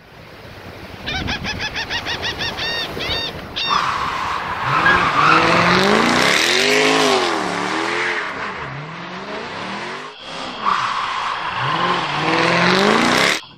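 A car engine revving up and down with screeching tires, preceded by a quick series of short pitched pulses, about five a second. The sound breaks off once and then cuts off abruptly near the end.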